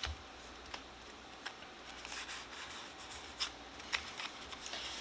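Pokémon card booster pack crinkling as it is opened and its cards handled: faint scattered ticks and rustles, with a soft papery hiss about two seconds in.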